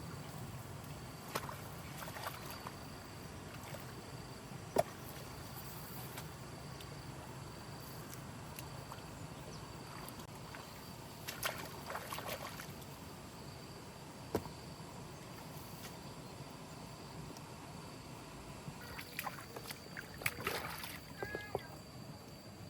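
Water sloshing and splashing in bursts, with a few sharp knocks, over a steady low background hum.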